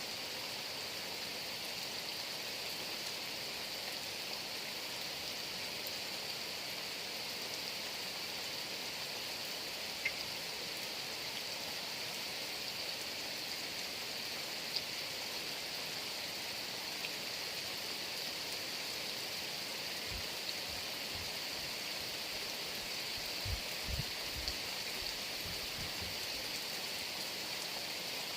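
Heavy rain falling steadily as an even hiss, with a few sharp drips and, in the second half, a handful of short low thumps.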